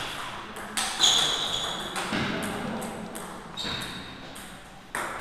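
Table tennis ball being hit by paddles and bouncing during a rally: a few sharp clicks spaced irregularly, two of them ringing with a brief high ping.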